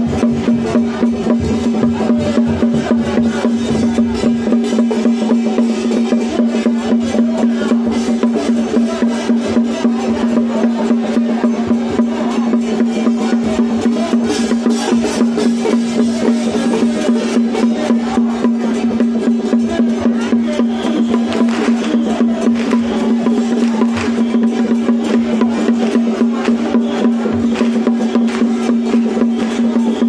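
Percussion music: fast, continuous drumming with wood-block-like clacks over a steady held tone.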